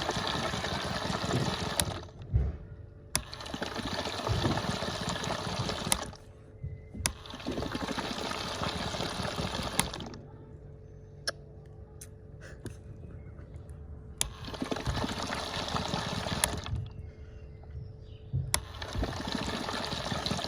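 A toy washing machine, modified to run at high speed, churns water in bursts of about three seconds, five times, with a sharp click as each burst starts and stops, and a faint steady hum underneath.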